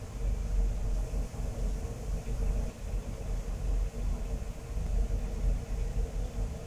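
A low, uneven rumble with a faint steady hum above it.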